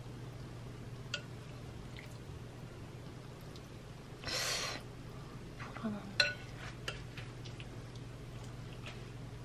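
Light kitchen handling sounds while food is assembled on a board: a few small clicks and clinks of utensils, the sharpest just after six seconds, and a short rustle a little after four seconds, over a steady low hum.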